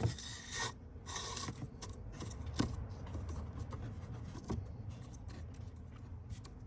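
New cabin air filter being handled and slid into its housing, scraping and rubbing. There are two hissy scrapes in the first second and a half, then a few light knocks.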